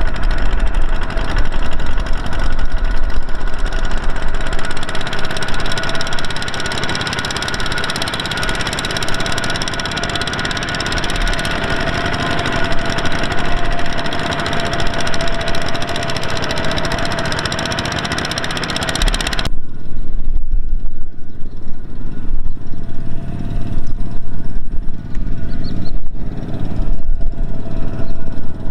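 Single-cylinder Kubota diesel engines of two-wheel walking tractors running under load as they haul loaded rice trailers through mud. About two-thirds of the way in, the sound changes abruptly to a lower, thudding chug.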